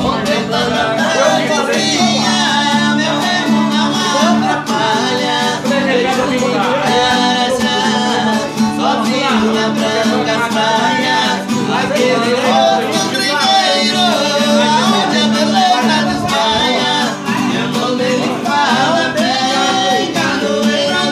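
Acoustic guitars strummed steadily, accompanying singing.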